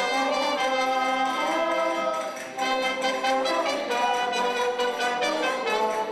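Live brass music: trumpets and a trombone playing a tune in held notes, with a short break between phrases about two and a half seconds in.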